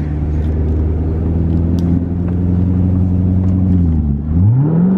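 Corvette V8 engine heard from inside the cabin, droning at a steady pitch under hard driving. Near the end the pitch dips briefly, then climbs steeply as the engine revs up again.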